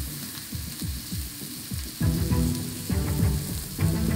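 Meat frying in a hot pan, a steady crackling sizzle, over background music with low beats that grow heavier about halfway through.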